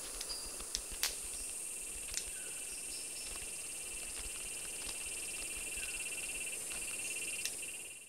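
Steady rainforest chorus of calling frogs and insects, with a few sharp snaps, typical of the wing snaps of displaying male red-capped manakins at their lek, about a second in, around two seconds in and near the end.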